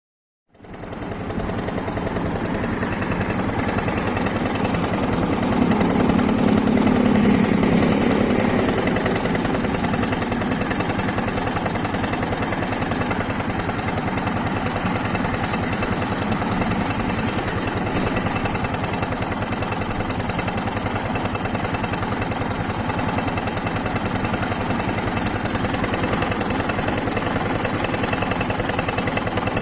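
Honda SL230's air-cooled single-cylinder four-stroke engine idling steadily, with a fast clattering tick ("kata-kata-kata") from the valve gear. This is tappet noise, which the owner puts down to valve clearance that needs adjusting.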